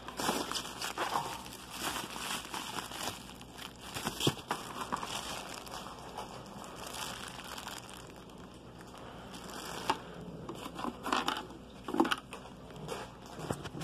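Clear plastic packaging crinkling and rustling as it is handled and pulled open, with two sharper knocks near the end, the second the loudest.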